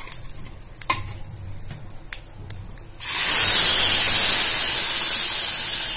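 Whole spices frying in hot oil with a low sizzle and a few sharp pops. About halfway a ground onion and peanut paste goes into the oil, and a sudden loud hiss of sizzling starts and keeps going.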